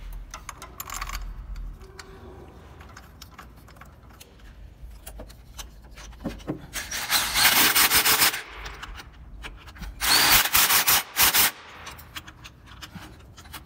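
A wrench tightening the bolts of an engine mount: scattered clicks and metal knocks, then two loud bursts of rapid clicking about seven and ten seconds in.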